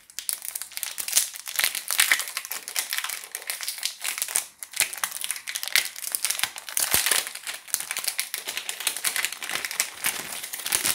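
Thin clear plastic film crinkling and crackling as it is peeled and pulled off a plastic Pyraminx puzzle by hand, a dense run of small crackles with brief pauses.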